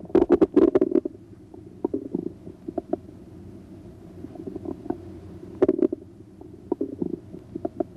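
Bowel sounds heard through a stethoscope's diaphragm over the right lower quadrant of the abdomen: irregular gurgles and clicks. A dense burst comes in the first second, scattered clicks follow, and more gurgling clusters come near six seconds and toward the end.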